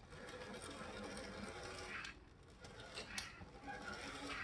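AZL Z scale GP9 model locomotive running on its track with a faint steady motor whir, with a few light clicks.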